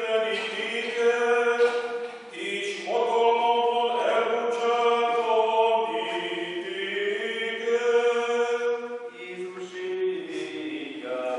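A solo male voice chanting the Passion from a printed score, holding each note and stepping from pitch to pitch.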